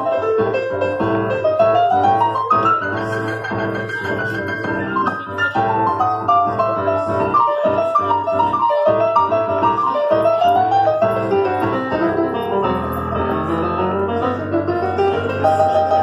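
Korg electronic keyboard played with a piano sound: an instrumental solo of quick melodic runs that climb and fall over a steady low accompaniment.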